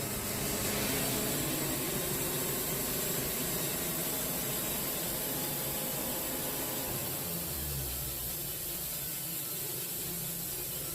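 Wood-Mizer portable sawmill running steadily, a constant mechanical drone with hiss.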